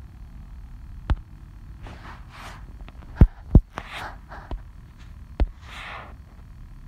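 Handling noise on the recording microphone after the reading ends: several sharp thumps and knocks, the two loudest close together about three and a half seconds in, with short soft rustles between them.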